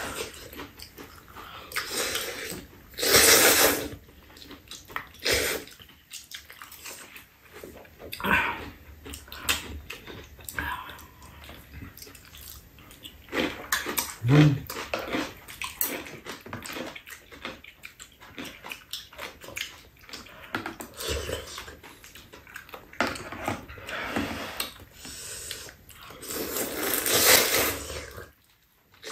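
Two people slurping noodle soup and chewing, with small clicks of chopsticks on the bowls. There are two long, loud slurps, one about three seconds in and one near the end.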